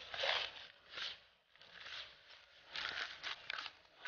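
Hand stirring loose, coarse groundbait of breadcrumbs, oat flakes and grain in a plastic bucket: a run of short gritty rustling swishes at uneven intervals, busiest a little before the end.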